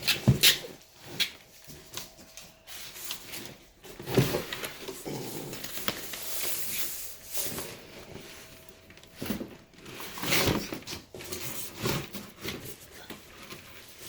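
Irregular clicks, knocks and rustling from a new bicycle and its packaging being handled during unboxing.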